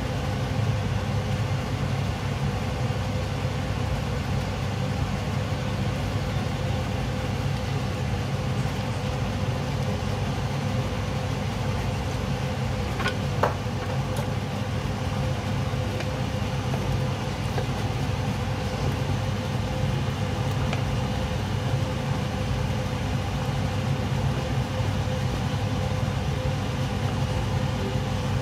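A pot of sinigang at a rolling boil on the stove: a steady low rumble with a faint steady hum over it. A single short click about 13 seconds in.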